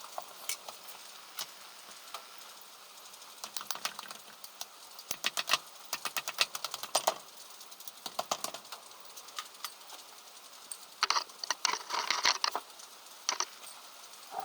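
Metal clicks and clinks from hand work on a disassembled Subaru EJ20 short block, coming in irregular clusters, with a louder rattling burst about eleven seconds in. A steady rain hiss runs underneath.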